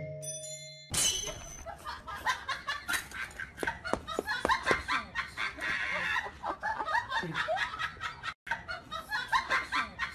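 A short marimba-like tune ends about a second in. Then comes a long stretch of laughter, many quick giggles and snickers overlapping, with a brief cut-out about eight seconds in.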